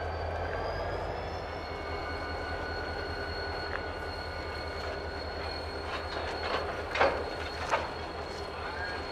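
Freight cars rolling slowly past behind an EMD GP40 diesel, with a steady high wheel squeal over a low rumble. Two sharp clanks come about seven seconds in, as the wheels cross a rail joint.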